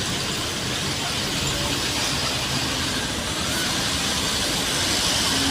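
Diesel bus engine running, with a steady hiss over its low rumble that grows a little louder near the end.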